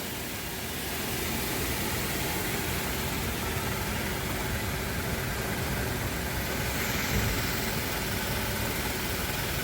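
A steady, even running noise of an engine or motor, with no distinct knock or tapping.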